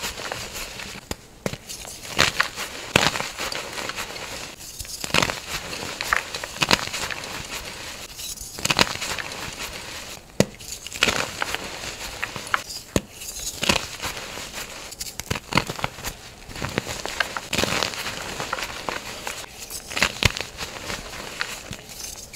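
Reformed gym chalk crunching and crackling as hands squeeze and crush it into powder. The crackles come in dense bursts, with short pauses every few seconds between squeezes.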